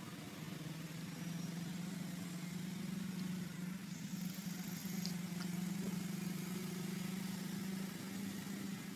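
A vehicle engine idling nearby, giving a steady low hum.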